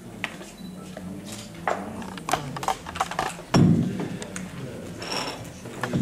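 Handling noise from a handheld microphone: scattered clicks and knocks, then a loud thump about three and a half seconds in.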